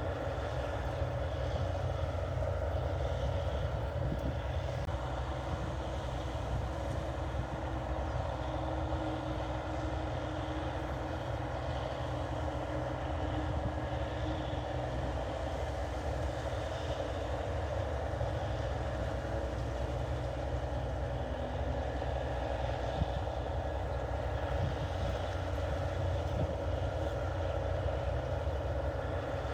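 NH 8080 combine harvester running steadily while cutting rice: an even, unbroken engine drone with no let-up.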